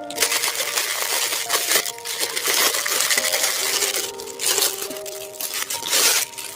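Crinkling, rustling and clattering from a toy tractor's packaging being handled and opened, with light clinks, over background music.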